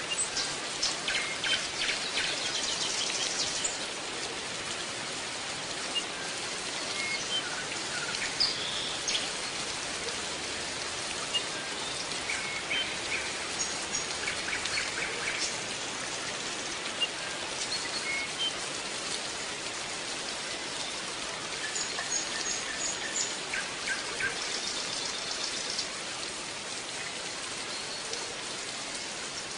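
European goldfinch of the large 'major' form singing: bursts of quick, high twittering chirps and trills with short pauses between them, over a steady hiss.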